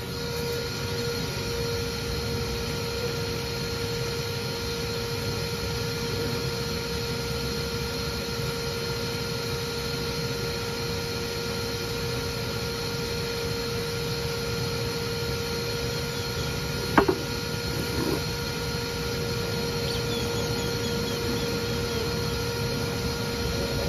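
Bee vacuum's motor running steadily with a constant hum. A single sharp knock about seventeen seconds in, and a softer one a second later.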